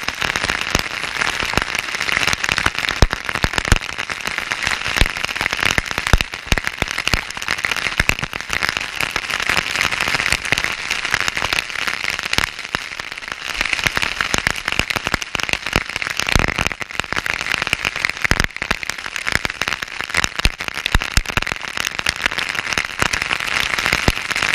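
Falling water pouring and splashing close to the microphone: a steady rushing hiss thick with crackling spatters of droplets.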